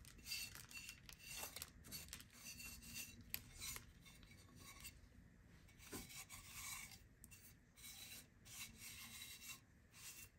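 Faint, irregular scraping and rubbing as hands wipe old soil off a brown ceramic bonsai pot, cleaning it for reuse.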